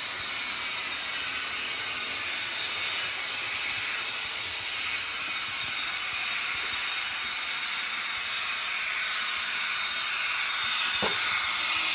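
Märklin HO model train, an SBB Re 4/4 II electric locomotive hauling two-axle freight cars, running along the layout track: a steady whir of the motor and gears with the rattle of wheels on the rails. It grows a little louder near the end as the train comes closer.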